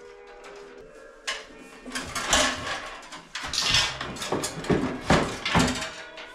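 Irregular clattering, knocking and scraping of metal parts during hands-on work inside an electrical panel.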